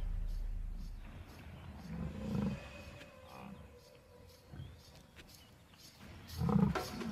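Lioness growls in short bouts: a loud low growl fading over the first second, quieter growls about two seconds in, and a louder one near the end.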